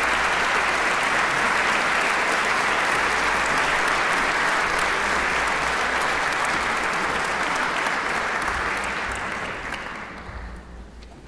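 Audience applauding steadily in a concert hall, the clapping dying away near the end.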